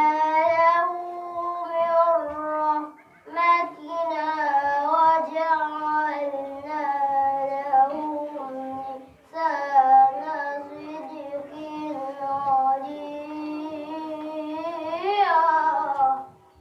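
A boy chanting Quranic recitation in the melodic tajwid style, in three long drawn-out phrases with ornamented, wavering pitch, pausing for breath about three and nine seconds in. The pitch swells upward briefly near the end of the last phrase.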